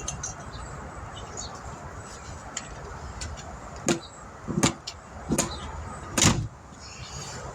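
Hammer tapping four times, about a second apart, on the object stuck in a car tire, over a steady low rumble of traffic.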